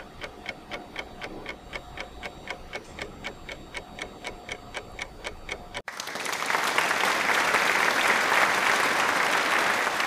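Clock ticking sound effect, about four ticks a second, as a guessing-game countdown; it cuts off sharply about six seconds in and gives way to an applause sound effect.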